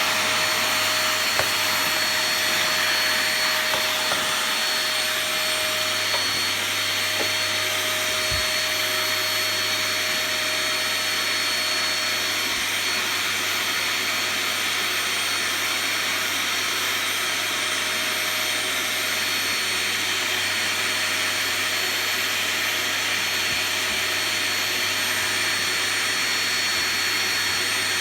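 Cheap 'Epic' household vacuum cleaner running steadily, a constant whirring hiss with a thin whine over it, and a few light knocks in the first several seconds.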